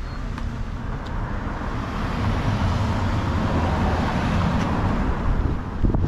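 A car driving along the road close by, its tyre and engine noise swelling over the first couple of seconds and then holding steady.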